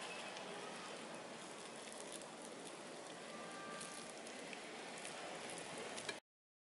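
Close handling of a thin raw beef slice as it is rolled around vegetables by hand: a soft, steady, moist crackling, with a few faint clicks, that stops abruptly about six seconds in.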